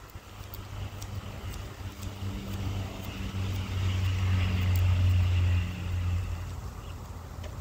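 A motor vehicle passing by: its engine hum builds to a peak about five seconds in, then fades away.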